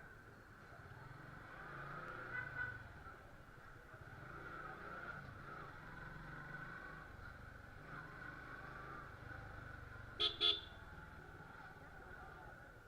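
Road traffic and a running motorcycle heard while riding, with two short horn beeps about ten seconds in, the loudest sound.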